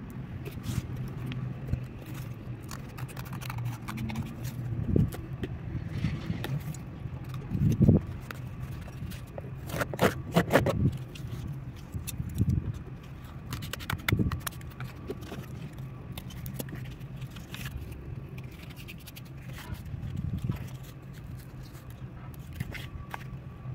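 A cardboard template rubbing and scraping against a water tank's wall as it is pressed and folded into the corner by hand, with irregular scrapes and sharp taps, the loudest about a third of the way in.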